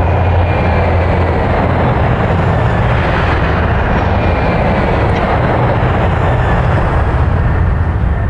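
Aircraft engines in flight, a loud, steady rumble with a wide hiss over it.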